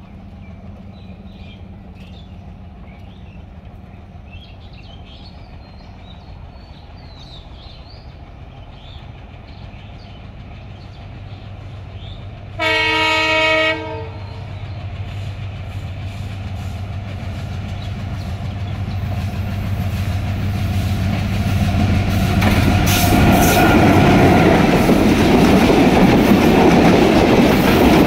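Bangladesh Railway intercity express train hauled by a diesel locomotive approaching: a low distant rumble, one blast of the locomotive's horn lasting about a second around halfway, then the rumble of the locomotive and coaches growing steadily louder as the train passes close by, with wheels clattering over the rail joints near the end.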